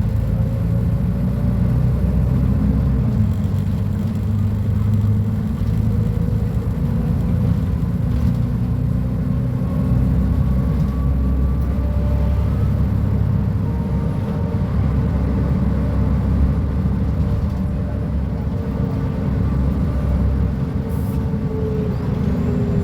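Mercedes-Benz O500UA articulated bus's diesel engine running steadily, a low, even engine sound with faint tones drifting slightly in pitch above it.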